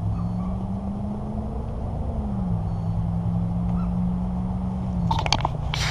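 A motor engine drones steadily at low pitch, its note rising slightly and then dropping about two seconds in. A few sharp clicks come near the end.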